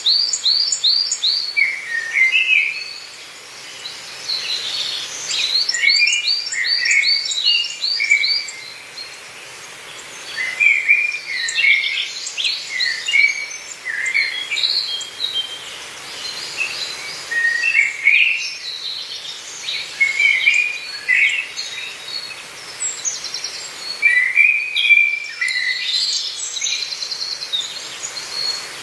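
Songbirds singing in a forest: phrases of quick, high chirps and trills come every few seconds, some as rapid runs of falling notes, over a faint steady hiss of background.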